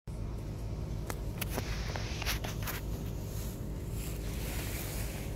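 Steady low rumble with a constant hum, typical of a railway works train's diesel engine running, with a few sharp clicks and scuffs between about one and three seconds in and a brief hiss near the end.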